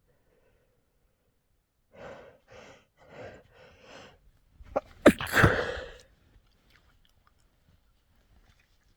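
A person sneezes once from a head cold: four short, catching breaths build up, then one loud sneeze about five seconds in.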